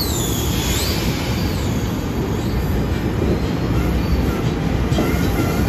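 NJ Transit bilevel commuter train moving along the platform: a steady, loud rumble of wheels on rail, with high wheel squeals gliding up and down in the first couple of seconds.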